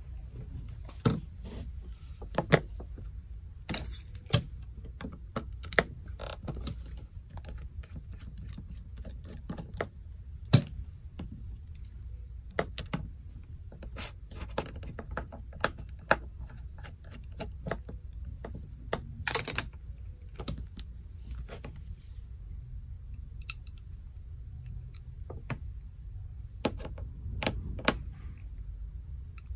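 Irregular clicks, taps and light rattles of small metal and plastic gas blowback pistol parts and a pin punch being handled, worked and set down on a cutting mat, a few clicks sharper than the rest, over a steady low hum.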